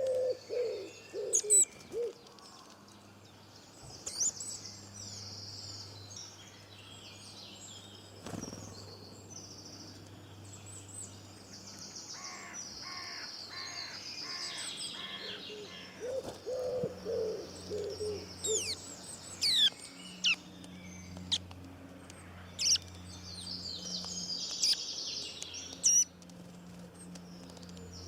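Several birds singing and chirping, with quick high trills and sharp call notes throughout. A low, repeated cooing call sounds at the start and again about two-thirds of the way in, over a steady low hum.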